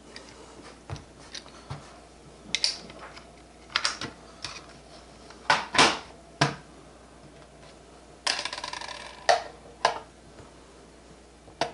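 Sharp plastic and metal clicks and knocks as precision screwdrivers are set down and fitted back into a red plastic screwdriver case, with a short rattle a little past the middle.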